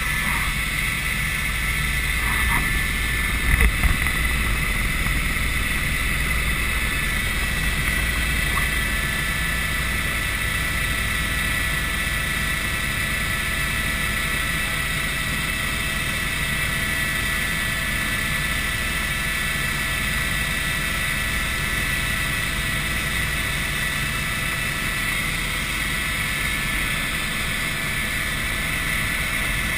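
Helicopter in flight heard from inside the cabin: a steady low rumble of engine and rotor with a constant high whine on top. A few loud knocks about four seconds in.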